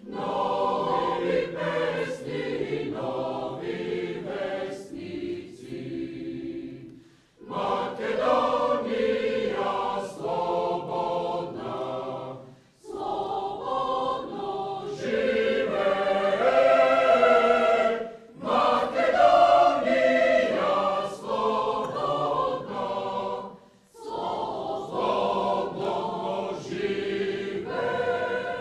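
An anthem sung by a mixed choir of men's and women's voices, in phrases with short breaks between them.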